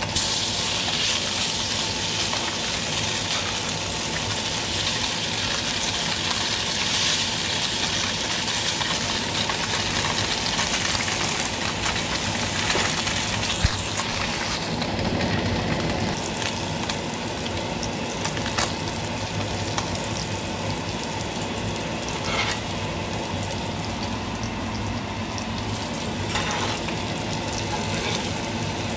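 Striped perch fillets sizzling steadily as they fry in butter and oil in a hot cast iron skillet, with a few light clicks.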